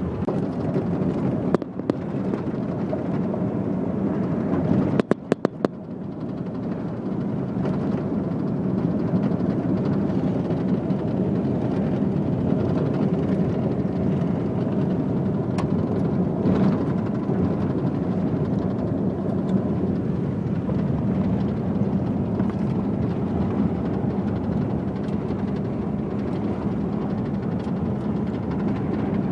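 Car driving along a road: steady engine and road-noise rumble, briefly cutting out with clicks twice in the first six seconds.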